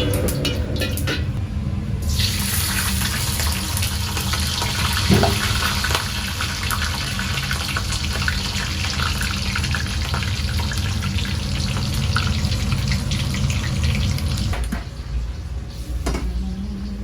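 Water running from a tap, turned on about two seconds in and shut off near the end, as a steady hiss over a low, constant hum.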